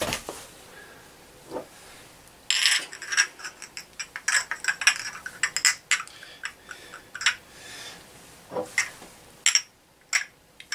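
Small glass hot sauce bottles clinking and knocking against each other as they are handled, a quick run of clinks for several seconds, then a few spaced ones near the end.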